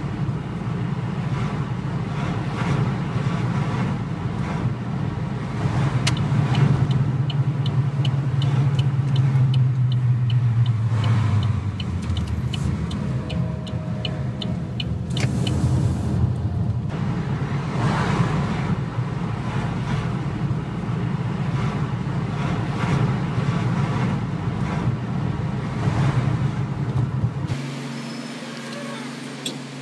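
Car interior road and engine noise picked up by a dashcam: a steady low rumble. A run of quick, even ticks comes in for a few seconds in the first half, and the sound changes abruptly twice where one clip cuts to the next.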